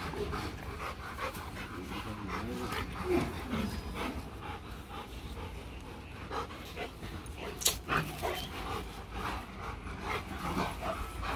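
Rottweilers panting as they move around each other, with a few short wavering whines about two to three seconds in and one sharp tap near the eight-second mark.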